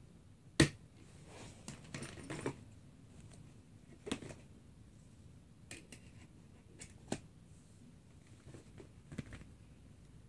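Handling noises of a binder and a plastic slide-in hole punch: one sharp click about half a second in, a short bout of rustling, then scattered lighter clicks and taps.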